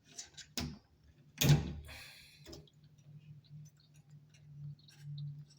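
Small metal parts clicking and tapping as a little pin is worked into its slot on a shower valve cartridge, with the loudest knock about a second and a half in, over a faint steady low hum.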